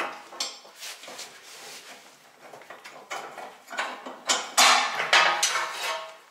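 Metal-on-metal clanks, knocks and scraping as a rubber mount is worked free from a car's rear underbody by hand, an uneven series of knocks with the loudest cluster in the second half.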